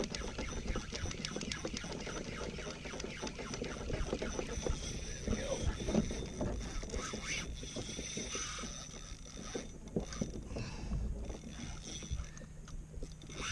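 Water slapping against a kayak hull and its outrigger floats, with a rapid run of clicks from a fishing reel as a fish is fought on a bent rod; the clicking thins out in the last few seconds.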